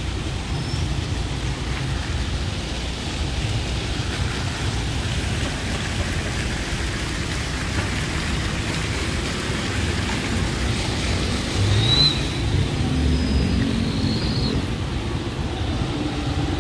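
Street traffic: cars driving past on the road, a steady rush of road noise with a low rumble. It grows louder about twelve seconds in, where a brief high squeak cuts through.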